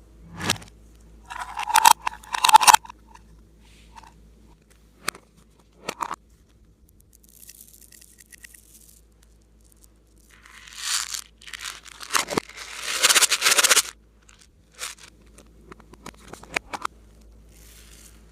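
Clay slime being handled and worked by hand, heard as irregular bursts of crisp, crackly noise with a few short sharp clicks between them; the longest stretch comes about eleven to fourteen seconds in.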